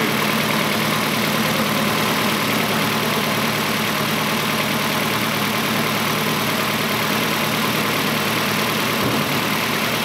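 2006 Nissan Altima engine idling steadily with its number four cylinder dead, not firing.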